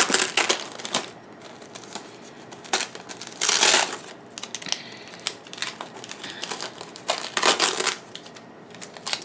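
White packing paper wrapped around a shipped potted plant rustling and crinkling as hands unwrap it, loudest in three bursts: at the start, about three and a half seconds in, and about seven and a half seconds in.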